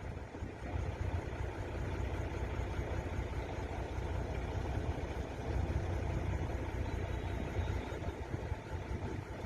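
A steady low rumble with a hiss above it, unbroken throughout.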